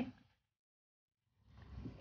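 Near silence between two spoken repetitions of the country name "Czech Republic": the first word trails off at the very start, and the voice starts up again just before the end.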